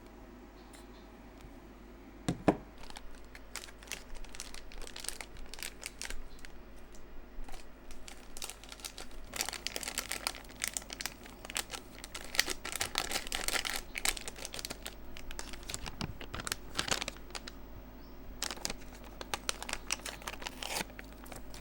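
Packaging being handled: irregular crinkling and rustling, with a sharp click about two seconds in.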